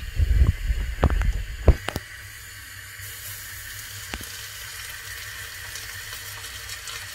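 A piece of string cheese frying in hot oil in a steel frying pan, the oil sizzling and bubbling steadily from about three seconds in. A few low knocks and thumps come in the first two seconds.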